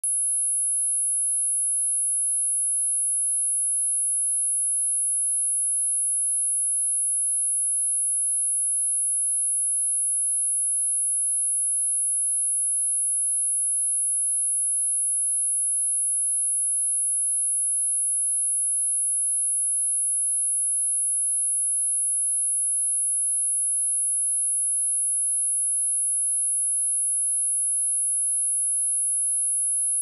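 A steady pure 10,602 Hz sine-wave test tone, a single high-pitched whine held at constant pitch and level, used to test speakers and to shake water and dust out of them.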